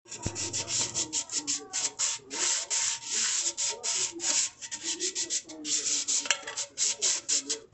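Sandpaper rubbed over an aluminium milk can in quick back-and-forth strokes, a few a second, with short pauses between runs of strokes.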